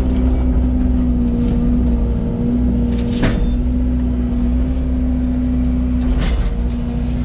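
Yanmar VIO80 excavator's diesel engine running steadily with a constant hum. A short sharp crack or knock comes about three seconds in, and a weaker one about six seconds in.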